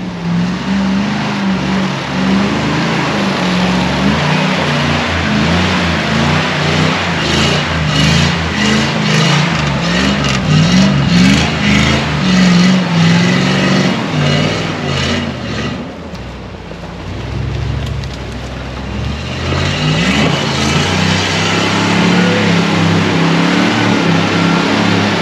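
The Lesorub truck's 7.4-litre V8, coupled to an automatic gearbox, revs hard under heavy load as the truck churns through deep forest mud. The revs rise and fall, with a spell of short knocks and splatters in the middle. The engine eases off about two-thirds of the way in, then revs up hard again.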